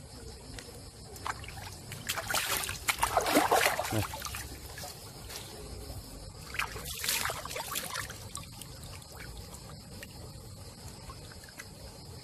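Water splashing and sloshing as hands clean a rat carcass in shallow water, in two bouts: the louder one about two seconds in and a shorter one around seven seconds. Crickets chirr steadily underneath.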